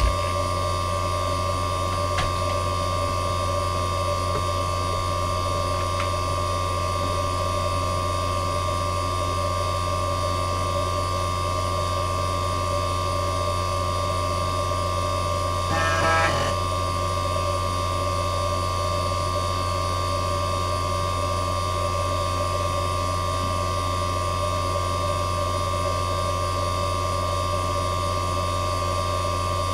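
Fujitsu XV10 MPF3102AT 3.5-inch IDE hard drive spinning at speed: a steady 5400 rpm spindle motor hum with a thin whine over it. About halfway through there is a brief burst of drive activity noise, under a second long.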